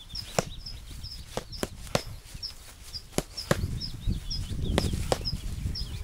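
Sharp, irregular snaps of fast bare-fist strikes slapping into tree leaves, with a low rumble building from about halfway through. A short high chirp repeats steadily about twice a second in the background.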